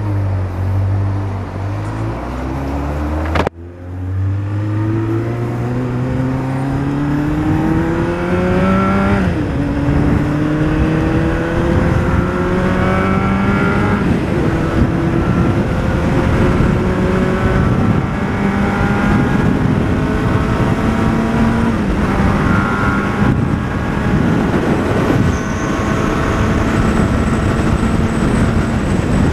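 Honda Hornet 600's inline-four engine idling, then pulling away: the pitch climbs steadily through the revs, drops at gear changes about nine and fourteen seconds in, then settles into a steady highway cruise with wind rush. The sound cuts out briefly about three and a half seconds in.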